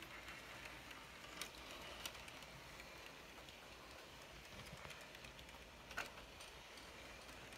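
Faint rolling of a model container train's cars along the track, with a few sharp clicks, the loudest near the end.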